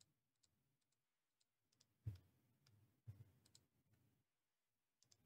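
Near silence broken by a few faint computer-mouse clicks: one about two seconds in, a quick pair a second later, and one more at the end.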